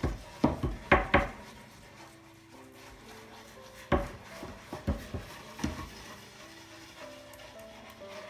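Coarse salt scrubbed into a wooden cutting board with a lemon quarter: a quick run of rasping strokes in the first second or so, then a few more strokes around the middle.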